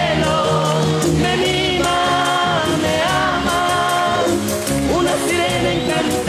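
Vallenato song played live: a button accordion playing chords and melody over bass and steady percussion, with a man singing.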